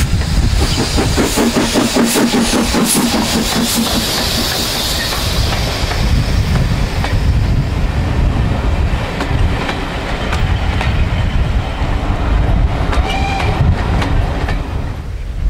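Steam locomotive passing close by with a quick, regular exhaust beat over the first few seconds, then its train of coaches rolling past with the clickety-clack of wheels over rail joints.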